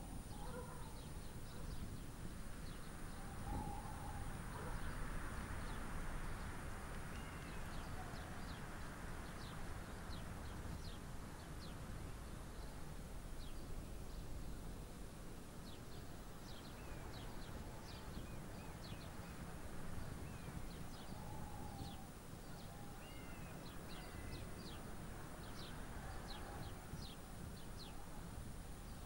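Birds calling in trees: many short, high chirps throughout, with a few lower calls now and then, over a steady low rumble.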